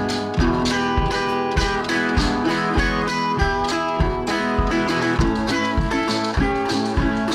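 Background music: an up-tempo acoustic guitar track in a country style, strummed to a steady beat.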